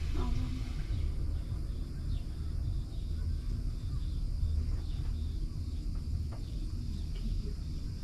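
Insects chirring in a high, evenly pulsing trill over a steady low rumble.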